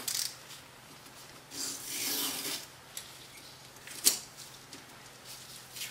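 Window tape being pulled off its roll and pressed down onto car paint around a headlight, a rasping scrape about two seconds in and a sharp tick about four seconds in.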